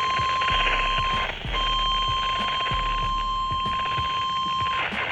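NOAA Weather Radio's 1050 Hz warning alarm tone: a steady, single high-pitched tone that cuts out briefly about a second in and again near the end. It is the alert that marks a new warning broadcast coming through.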